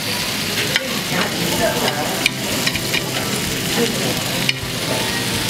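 Pork belly, kimchi and bean sprouts sizzling steadily on a hot grill plate, with scattered light clicks and scrapes of utensils stirring the food.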